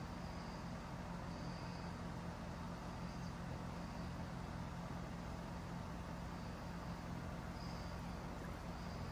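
Steady outdoor background: a constant low hum over a noise bed, with faint high insect chirps every second or so. No splash or dipping sound stands out.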